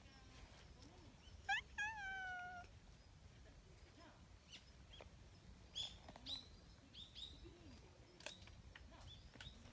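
Brown tabby cat giving one high-pitched meow about a second and a half in: a short note, then a longer one that falls slightly in pitch. Later, small birds chirp several times in short, high notes.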